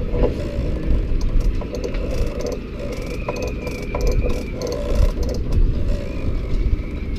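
Metal parts of a stripped Lewmar sailing-yacht winch clicking and knocking as they are handled and turned on the winch base, a few scattered clicks over several seconds, over a steady low rumble.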